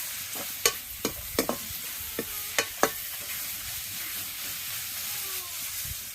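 Pumpkin shoots frying in a pan with a steady sizzle. They are being stirred, with several sharp clicks of the utensil against the pan in the first three seconds.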